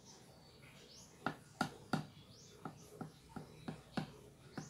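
A utensil tapping and knocking against the plate of an electric waffle maker while batter is spread, about nine sharp taps in an uneven rhythm, two or three a second, starting about a second in.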